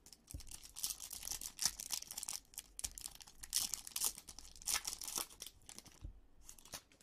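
Foil wrapper of a Topps Allen & Ginter Chrome card pack being torn open and crinkled by hand: a run of irregular rips and crackles that dies down near the end.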